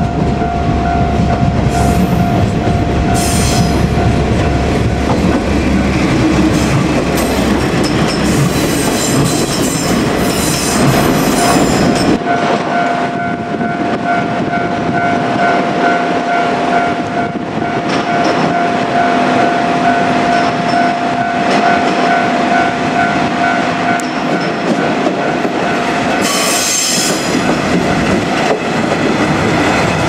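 Level-crossing alarm ringing steadily as a two-car diesel railcar runs slowly through the crossing. Its engine and wheels make a rumble and clatter on the rails, and a short high-pitched sound comes near the end.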